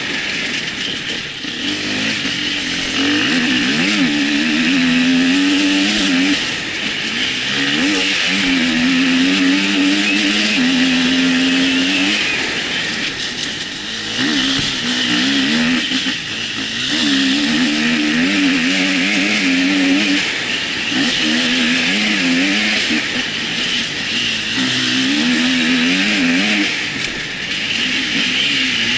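Husqvarna enduro motorcycle engine heard close up from on board, revving up and dropping back over and over as the rider opens and closes the throttle and shifts gears.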